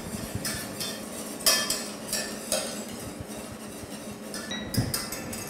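Wire whisk stirring a hot caramel in a stainless steel saucepan, its wires scraping and clinking irregularly against the pan's sides and base, with a few louder clinks.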